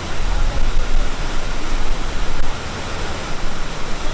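Waterfall rushing in a steady, loud hiss, with a low rumble that eases about two and a half seconds in.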